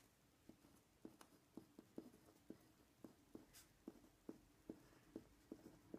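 Uni-ball Vision Elite rollerball pen writing on grid paper: faint short taps and scratches of the pen strokes, a few a second, beginning about half a second in.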